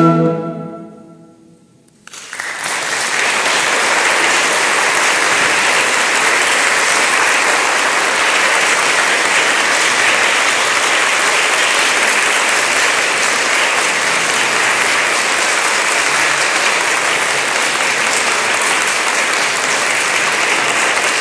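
The last note of a shakuhachi and concert harp duet rings and dies away, then an audience applauds steadily from about two seconds in.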